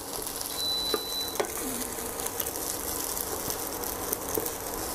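Fried rice sizzling in a nonstick wok while a wooden spatula stirs and turns it, with scattered light clicks and scrapes of the spatula against the pan over a steady hiss.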